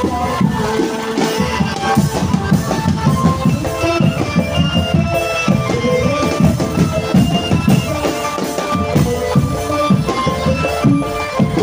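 Live drum band music: fast, dense beating on marching drums under a melody of held, stepping notes.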